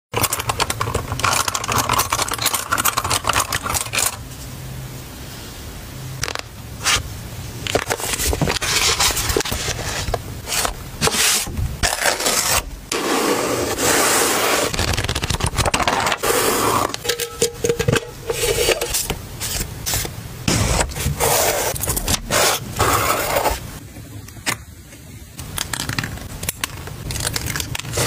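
Handling sounds: ornate metal embroidery scissors clinking and scraping against each other as hands sort through a pile of them, then paper rustling and rubbing as sheets are pressed and layered onto a notebook page. There are many sharp taps and clicks throughout.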